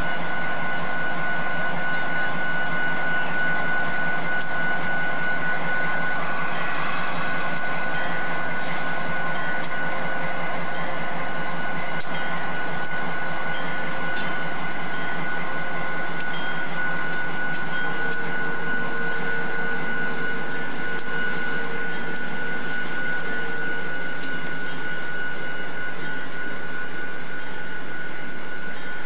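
Diesel-electric locomotive idling: a steady engine hum with a constant high whine. A brief hiss comes about six seconds in.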